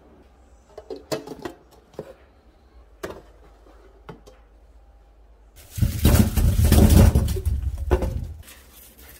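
Light clicks and knocks of a steel tray and a food container being handled, then about six seconds in a loud tumble lasting two to three seconds as onions are tipped from a mesh bag into a stainless steel sink, thudding and rolling against the steel.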